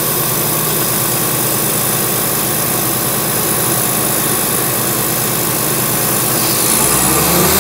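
Diesel engine of a borewell drilling rig's air compressor running steadily. Near the end its note rises briefly.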